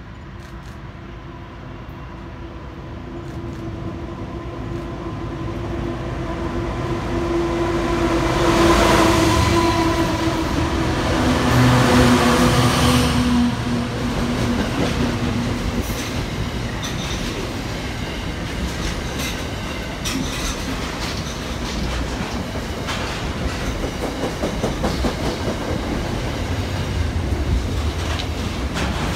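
Diesel-hauled container freight train approaching and passing close by, its GL- and RL-class locomotives leading. The locomotives' engine note builds, then drops in pitch as they pass about nine to thirteen seconds in. After that the loaded container wagons roll past, their wheels clicking steadily over the rail joints.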